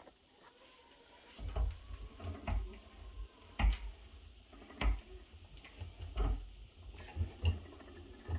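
Knocks and clunks from a strut spring compressor as it is turned to let the coil spring down. A string of uneven knocks starts about a second and a half in and comes roughly once every half second to second.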